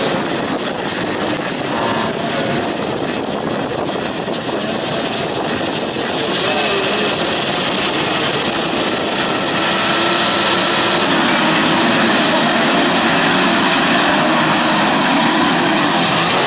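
Many motocross bike engines revving together at the start gate. They get louder about six seconds in, and again about ten seconds in as the pack launches at full throttle and stays loud.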